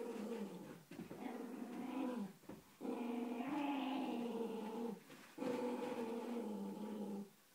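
A Doberman puppy and a miniature pinscher growling in play while tugging over a sock: four long growls with short breaks between them.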